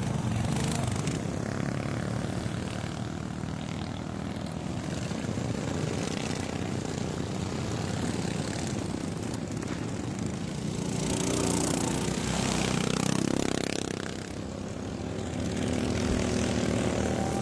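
Engines of racing ride-on lawnmowers running hard as the mowers speed round a dirt track. A little past the middle one engine note rises in pitch, the sound dips briefly, then the engines run on steadily.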